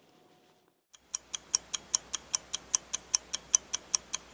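Clock ticking sound effect: quick, even ticks at about five a second, starting about a second in after a moment of near silence.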